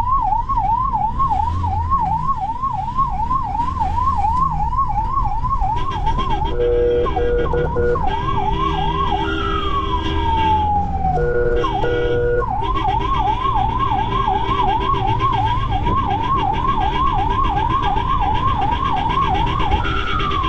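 Ambulance electronic siren in fast yelp, sweeping up and down about twice a second, heard from inside the ambulance. It breaks twice for short steady tones and once for a long falling wail, over steady engine and road rumble.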